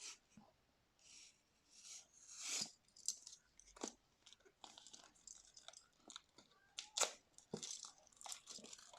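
Mousepad packaging being handled and opened, with irregular rustling and crinkling and a few sharp clicks.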